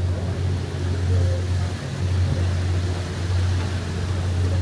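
Tour boat's engine droning steadily at cruising speed, a constant deep hum with a rushing noise over it.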